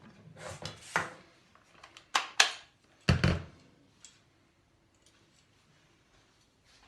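Kitchen handling noises: a handful of short scrapes and knocks of utensils and containers, clustered in the first few seconds, then quiet.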